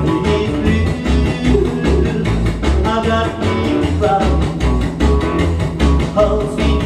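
A rockabilly record playing: a band with a singer and guitar over bass notes on a steady beat.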